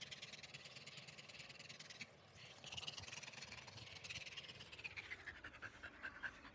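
Black Labrador panting with its mouth open.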